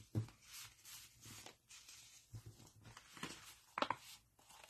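Sheets of patterned designer paper handled and slid over one another: a string of short, faint papery rustles, the sharpest just after the start and again near the end.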